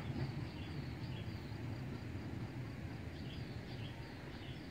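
Quiet rural outdoor ambience: a steady low rumble, with faint short high chirps repeating every second or so.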